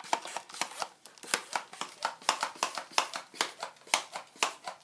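Buzz Bee Panther toy dart blaster being pumped quickly to build air pressure: a steady run of plastic clacks from the pump stroke, about three or four a second.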